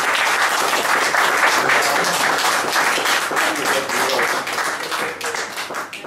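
Small audience applauding at the close of a recited poem, the clapping thinning out near the end.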